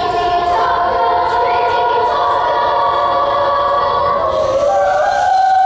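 Children's choir singing a French folk song in long held notes, moving up to a higher note near the end.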